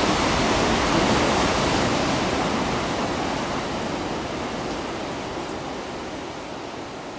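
Ocean surf as a steady rushing wash of water noise. It swells up just before the start, is loudest about a second in, then slowly fades away.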